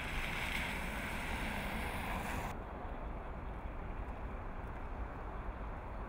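City street traffic: the hiss of cars passing close by, which cuts off suddenly about two and a half seconds in, then a steady low rumble of traffic.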